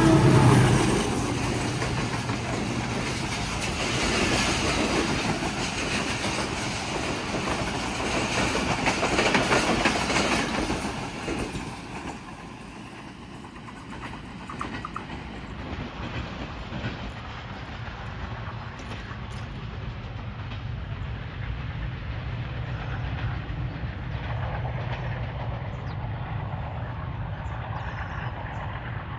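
Passenger express train hauled by a PHA-20 diesel-electric locomotive running through a station without stopping: wheels clattering over the rail joints, loudest for the first ten seconds, then dropping to a quieter rumble as the train draws away.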